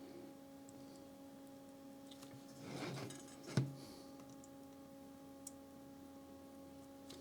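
Quiet workbench handling sounds over a steady electrical hum: a brief rustle about three seconds in, then a single sharp knock, and a faint click a couple of seconds later.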